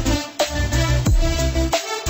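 Electronic background music with a heavy bass beat and falling bass sweeps.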